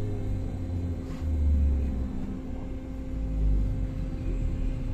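Cabin noise of a BKM 321 trolleybus riding along: a low rumble that swells and eases a few times, under a steady electrical hum.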